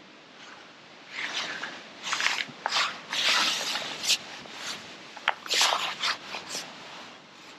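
Close rustling and scraping of clothing and tackle as an angler plays a fish on a feeder rod and pushes out the landing net. It comes in a series of short, irregular bursts with two sharp clicks in the middle.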